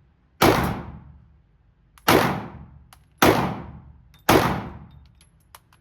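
Four single gunshots fired one at a time, a second or so apart, each ringing out briefly as it dies away.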